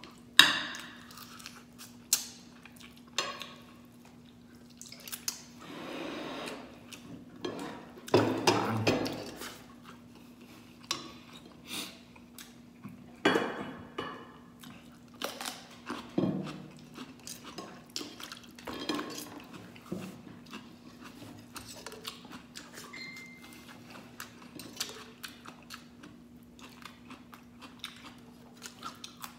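Mud crab and rice being eaten by hand: chewing, with scattered clicks and clinks of a plate and a steel pot, over a steady low hum.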